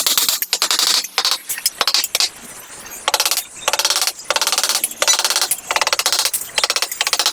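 Wood being hand-sawn in repeated strokes: a rapid, scratchy rasping in spells of about half a second to a second, with short gaps between them and a longer, quieter pause about two seconds in.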